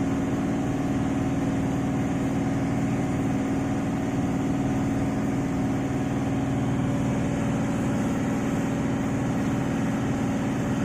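Diesel engine of an IVECO 420 tractor truck running steadily, an even drone with no change in speed.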